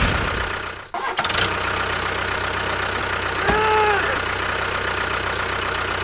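A small engine running steadily. It dips just under a second in and picks up again, and a short pitched tone rises and falls about three and a half seconds in.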